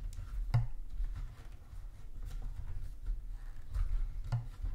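Handling noise of a 1/6 scale action figure being adjusted on its stand: light clicks and taps, with two sharper knocks about half a second in and near the end, over a low rumble.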